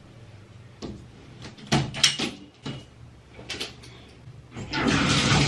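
Plastic and wire clothes hangers clicking and knocking against a shower rod as clothes are lifted down. Near the end a steady rush of water starts as the shower is turned on.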